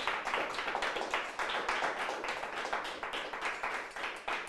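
Applause from a small group, many hands clapping unevenly and densely.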